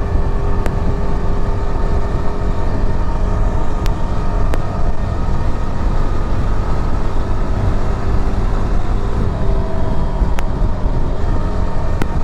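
Yezdi Adventure motorcycle's single-cylinder engine running at a steady cruise under heavy wind rush on the rider's microphone. The rider finds the engine a little noisy.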